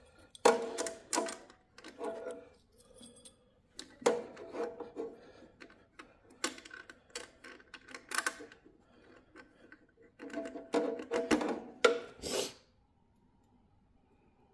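Metal scraping and clicking in short bursts as a socket driver tightens the nuts on a link plate over a generator's winding terminal studs. Each burst carries a brief metallic ring, and the bursts stop near the end.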